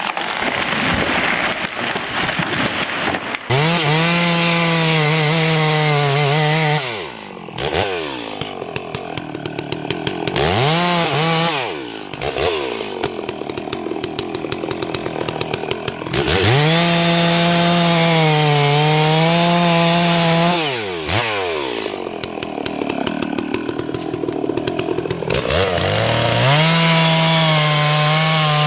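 Chainsaw running at full throttle while cutting wood, its pitch sagging slightly under load. It drops back to idle a few times and revs up again each time. The first few seconds hold a duller sawing noise.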